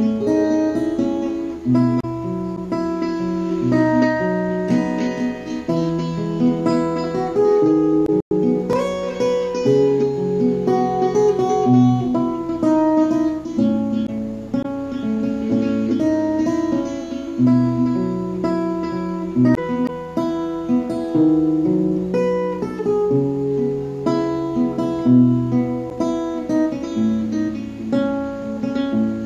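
Background music: an acoustic guitar playing slow, sustained chords, briefly cutting out about eight seconds in.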